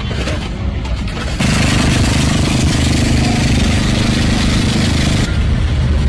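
An engine running, a steady low hum under a loud hiss, which comes in abruptly about a second and a half in and cuts off sharply near the end.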